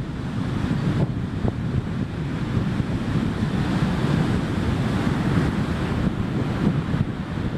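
Wind buffeting the microphone: a steady, rough rumble of noise.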